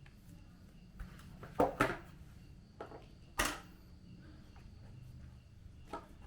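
A few separate clacks from a mechanical keyboard with Outemu Red switches on a steel plate: about five isolated key strikes with pauses between them. The loudest are a close pair near two seconds in and a single sharp one a little past three seconds.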